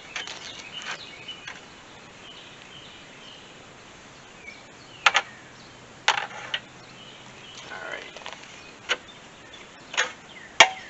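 Hand tools clinking on the AC line fittings at a truck's condenser as the lines are being unhooked: a handful of sharp metallic clicks spread a second or more apart.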